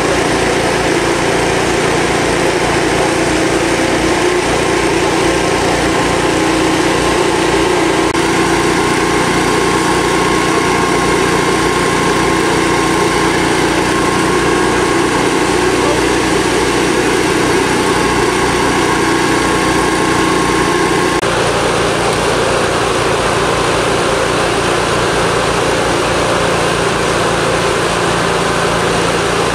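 Fire service engine-driven equipment running steadily: a constant engine drone with steady tones, whose pitch shifts about twenty seconds in.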